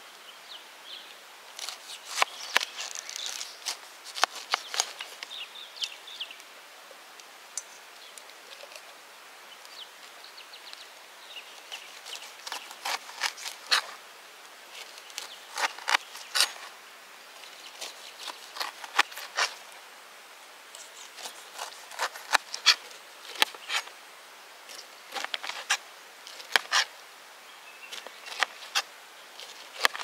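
A kitchen knife cutting the rind off a whole pineapple, with sharp crunching cuts and taps on a cutting board coming in clusters every few seconds.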